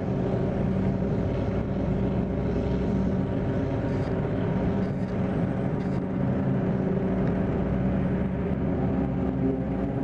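Zetor 16145 tractor's diesel engine running steadily under load while pulling a loaded forage wagon.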